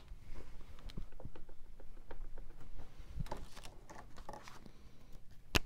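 Quiet handling noises: a scatter of soft, irregular clicks and taps, with one sharp click near the end.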